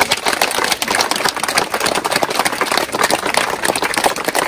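Crowd applauding, with dense, fast clapping.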